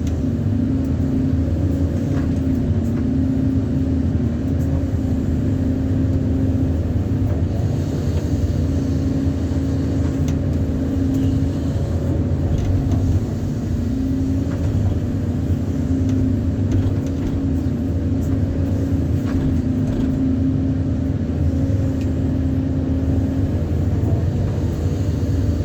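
An engine running steadily at constant speed, a continuous low drone with no revving.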